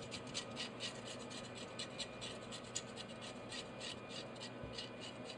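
Scales being scraped off a fresh threadfin fish with a hand scaler: a quick, repeated rasping scrape, about three to four strokes a second.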